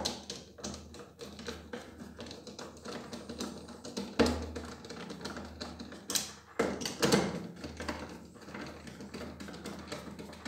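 Torx 20 screws being driven in to fix the plastic feet onto a Nilfisk E 140.3 pressure washer: a run of fast light clicks, with louder knocks about four, six and seven seconds in.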